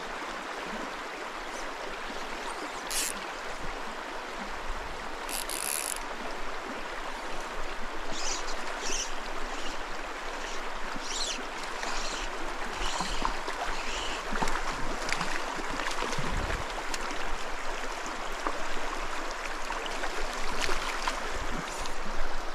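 Shallow, rocky mountain stream running steadily over stones, with short sharp ticks and splashes scattered through, more of them in the second half.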